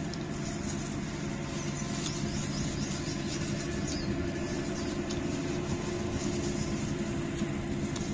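A steady low mechanical hum with several fixed low pitches, under faint crinkling of plastic gloves and a plastic bag as cooked meat is pulled apart by hand.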